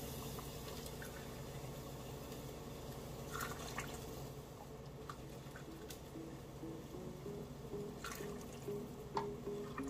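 Liquid sounds with a few light clicks and knocks in a kitchen. A simple melody of background music comes in about halfway through.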